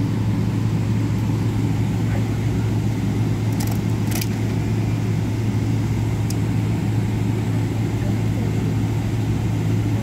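Steady drone of an airliner cabin with the jet engines running as the plane taxis, a strong low hum under an even rushing noise. A few brief clicks come about three and a half to four seconds in.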